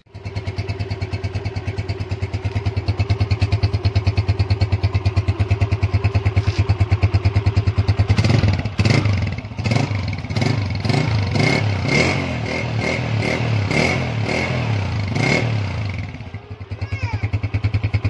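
Honda CG 125's single-cylinder four-stroke engine idling steadily through an aftermarket Iranian (Shirazi) silencer, then given a rapid series of short throttle blips from about eight seconds in to about fifteen seconds before settling back to idle.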